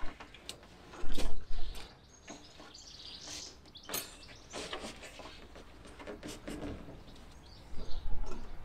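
Knocks, rubs and creaks as a pine-clad ceiling panel is shoved up against the van roof and braced with an extending support pole, with louder thumps about a second in and near the end.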